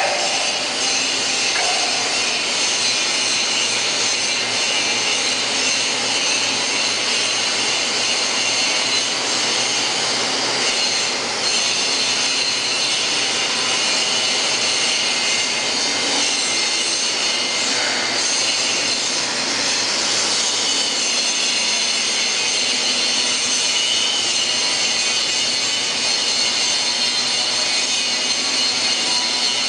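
Steady, loud running-machinery noise: a continuous high hiss with a few steady high-pitched whine tones, unchanging throughout.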